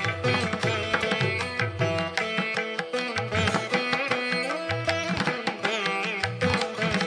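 Indian-style music: plucked strings over a held drone, with a quick hand-drum rhythm.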